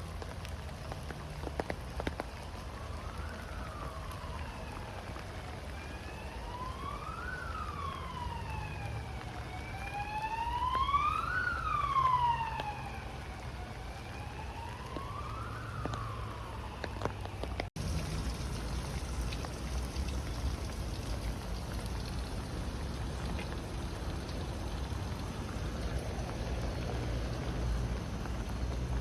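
An emergency vehicle siren wailing, slowly rising and falling in pitch about every four seconds, getting louder toward the middle and then fading, over steady rain. After an abrupt cut about two-thirds of the way through, only the steady rain noise remains.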